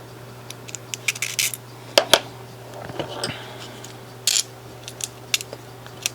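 Small metal parts of a record player's motor assembly clicking and clinking as they are handled and set down during disassembly, a dozen or so separate clicks over a steady low hum.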